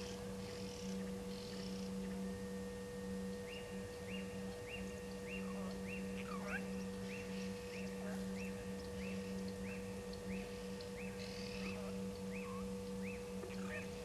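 Steady low electrical hum under outdoor bush sounds. From a few seconds in, a short high note repeats evenly about one and a half times a second, with scattered bird chirps around it.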